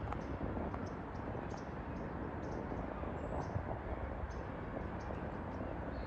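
Steady open-air background noise with faint, short high chirps scattered through it, one of them a brief falling chirp about three and a half seconds in.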